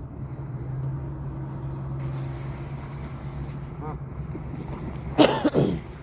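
Waterfowl calling: a faint call about four seconds in, then a short, loud, harsh call falling in pitch near the end, over a steady low hum.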